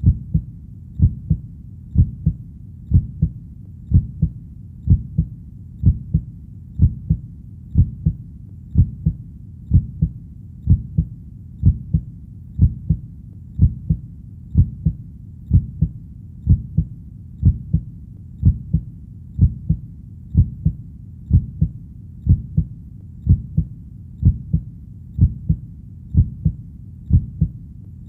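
A human heartbeat, a steady lub-dub with two low thumps per beat, at about one beat a second.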